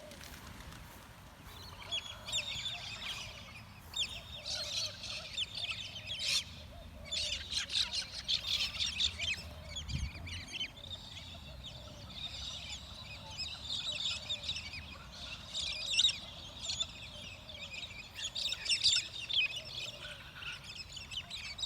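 A flock of wild birds calling together: a dense, overlapping chatter of short, high squawks and chirps that starts about two seconds in and carries on, rising and falling in loudness.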